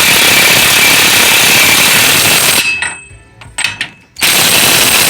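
Power impact wrench hammering as it tightens a bolt on a newly fitted rear wheel hub bearing. It runs in one long burst of about two and a half seconds, then a shorter burst of about a second near the end.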